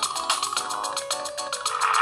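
Samsung Gravity 2 (SGH-T469) ringtone playing: an electronic melody over a fast, even ticking beat, growing louder near the end.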